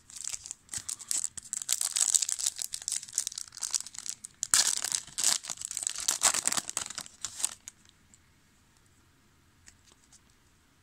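Foil wrapper of a 2000 Topps Season Opener football card pack being torn open and crinkled: a crackling, rustling noise in two spells that stops about seven and a half seconds in.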